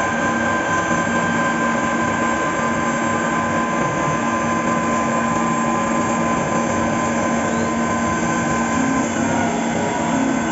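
Five-axis CNC milling machine running a cut: a steady whine from the spindle with a few held tones over an even rush of machining noise.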